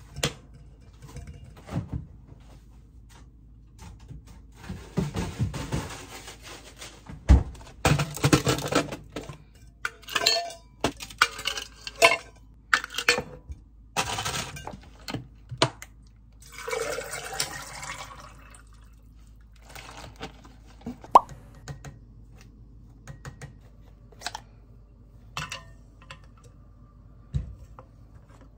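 Water running and splashing in short, irregular spells, with scattered clinks and knocks.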